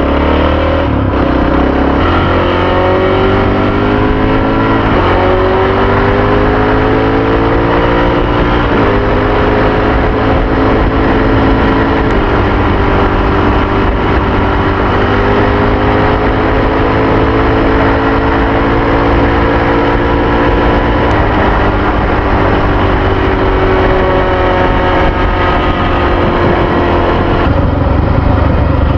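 Honda XR650R's big single-cylinder four-stroke engine pulling hard under a rider on the highway, with wind rushing over the microphone. Its pitch climbs in each gear and drops at each upshift, several times in the first ten seconds and once more about two-thirds of the way through, between long steady rising pulls.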